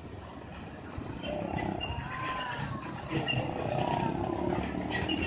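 Diesel engine of a Hino box truck running as the truck pulls slowly round a hairpin bend, growing louder from about a second in as it passes close by.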